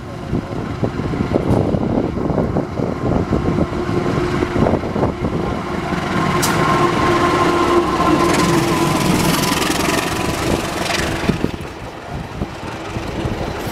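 Diesel-electric locomotive and passenger coaches running through a station without stopping: engine noise and wheels clattering over the rails, loudest in the middle as the locomotive passes, then easing as the coaches roll by.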